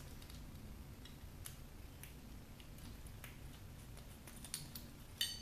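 Faint, scattered small clicks and ticks of a screw being worked out of a cooler's aluminium heating block, with a small metallic clink near the end.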